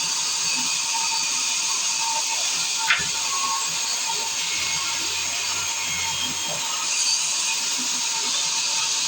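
Sawmill machinery running steadily, a circular saw mill, with one sharp click about three seconds in.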